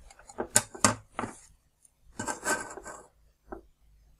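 Hands handling a printed circuit board and soldering iron on a wooden table: sharp clicks and knocks about half a second and a second in, a longer clatter about two to three seconds in, and one more click near the end.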